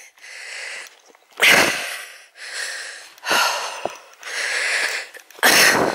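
A hiker breathing hard while walking on a climbing path, close to the microphone: about six heavy breaths, roughly one a second.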